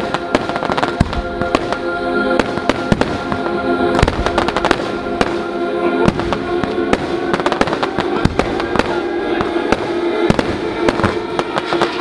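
Fireworks bursting and crackling in quick, irregular succession throughout, over music playing through a PA system.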